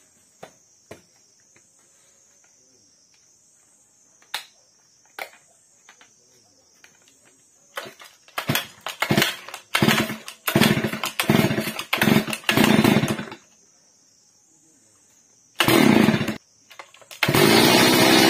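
72 cc two-stroke chainsaw being pull-started after a new cylinder and piston kit was fitted. After a few small handling clicks, a quick run of pulls makes the engine fire briefly again and again. Near the end it catches and runs steadily.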